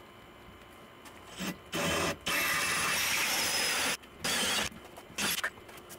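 Cordless drill running a hole saw through a wood-shingle wall, cutting in several bursts, the longest about a second and a half, with shorter spins near the end.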